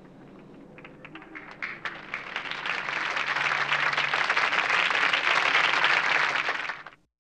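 Studio audience applause: a few scattered claps about a second in, swelling within a second or so to full applause, which then cuts off suddenly near the end.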